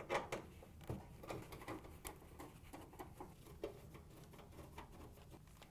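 Faint scattered clicks and scrapes of a nut driver turning screws out of a dryer's sheet-metal cabinet, with gloved hands handling the panel.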